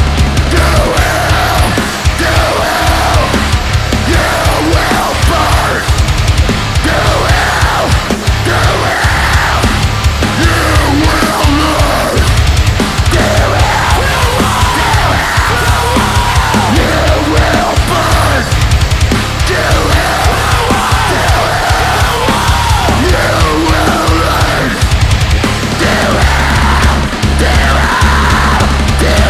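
A heavy metal band playing loud and aggressive, with a fast, chopping low end.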